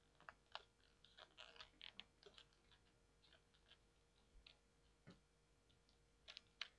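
Faint, scattered clicks and light crinkles of fingers picking and prying at small cardboard and plastic packaging to break it open, with a couple of slightly sharper clicks near the end.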